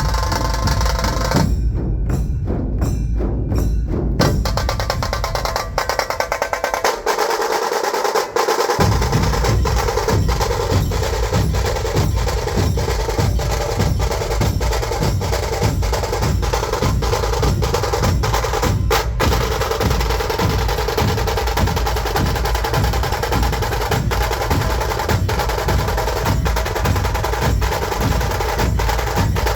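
Dhol-tasha drumming: tasha drums played with sticks in fast, rattling rolls over the steady beat of large dhol drums. The deep dhol beats drop out briefly and come back about nine seconds in.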